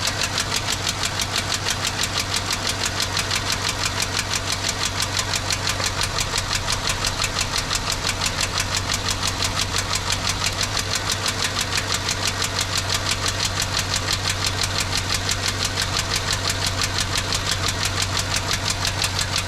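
A 2006 GMC's 4.8-litre V8 idling rough and noisy, with a steady uneven beat about four to five times a second from the passenger side. It is misfiring on cylinder 4, where a lifter sits shaking and is not really opening its valve.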